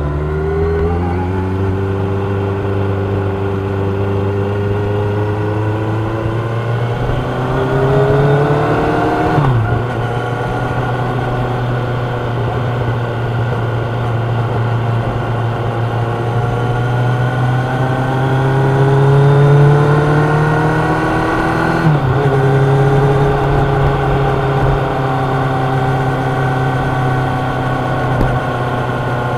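Kawasaki Ninja 1000's inline four-cylinder engine and exhaust running under way, its revs climbing slowly, then dropping sharply twice, about a third of the way in and again about three quarters of the way in.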